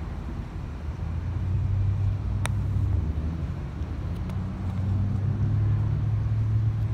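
Low rumble of a car engine running close by, swelling a little about two seconds in and again near the end, with a single sharp click about two and a half seconds in.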